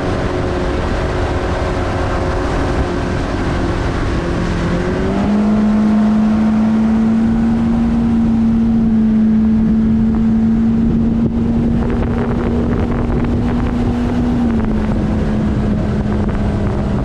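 1984 Johnson 120 hp V4 outboard running at speed, driving a bass boat across the water, with wind and water rushing. The engine note rises about five seconds in and eases back a little near the end.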